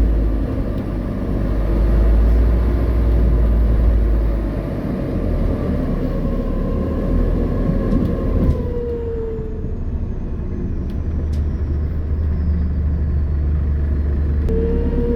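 Inside an Alexander Dennis Enviro400H hybrid double-decker bus: a low drive rumble under a steady electric whine. About nine seconds in the whine falls in pitch and fades as the bus slows, then it comes back near the end as the bus pulls away again.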